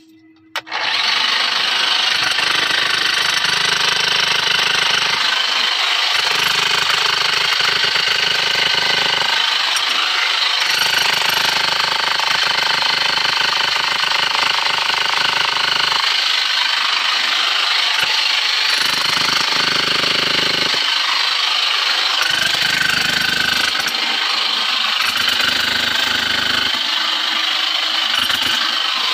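Handheld electric rotary hammer pounding into a tunnel's rock wall, starting about a second in and running on without a break. Its deeper pounding drops out and returns several times.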